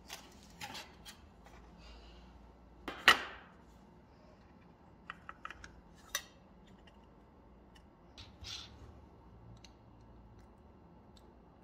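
Handling sounds of a plastic drill bit case and its bits: a sharp knock about three seconds in, a quick run of small plastic clicks as a thin bit is pulled from its holder, then a short rasp as the bit is fitted into a cordless drill's chuck. The drill itself is not run.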